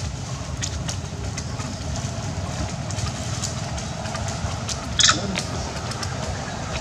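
Scattered rustles and crackles of dry leaf thatch as macaques shift about on it, with one sharper crackle about five seconds in, over a steady low rumble.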